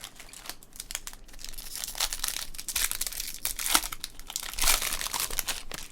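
A trading-card pack wrapper being torn open and crinkled, a dense run of crackles and rustles.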